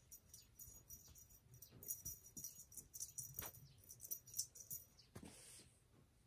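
Faint, irregular jingling of a small bell, many light strikes over the first five seconds, then a soft rustle.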